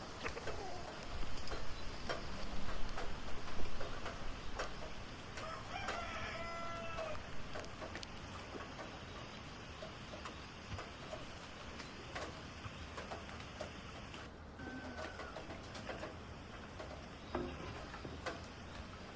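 A rooster crowing once, about six seconds in, with a short fowl call later. Louder knocking and clattering in the first few seconds.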